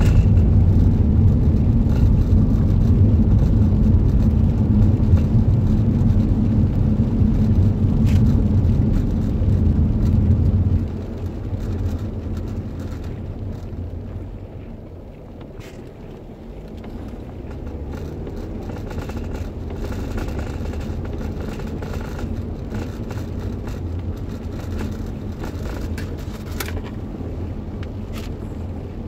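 Car interior noise while driving on a wet road: a steady low rumble of engine and tyres. About eleven seconds in it drops off sharply, quietens further for a few seconds, then picks up again at a lower level.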